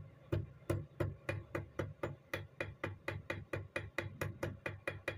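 A small steel hammer tapping rapidly on a steel pistol magazine held against a bench vise's anvil, about twenty sharp strikes that quicken from about three to about four a second. This is how the pressed-in, dented magazine body is being worked back open.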